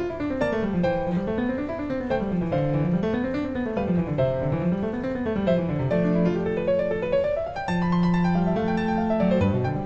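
Classical-style solo piano music: quick rising and falling arpeggios over a low bass line, settling on held notes about six and eight seconds in.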